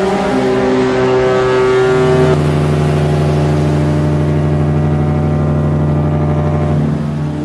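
Instrumental background music: held synthesizer chords, with a deep sustained bass note coming in about two seconds in.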